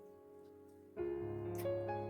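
Background music with a keyboard melody: faint held notes at first, then the music comes in louder about a second in.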